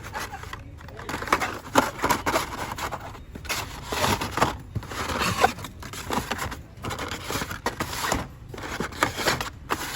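Carded Hot Wheels cars in plastic blister packs being handled and shuffled in a cardboard shipper box: irregular crinkling and rustling of plastic and cardboard, with small knocks.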